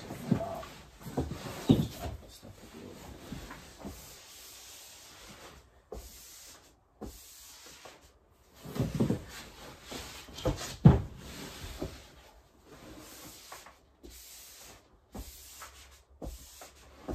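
Scattered knocks and rubbing as peel-and-stick wallpaper is worked and smoothed onto a wall, with the loudest knocks about 9 and 11 seconds in.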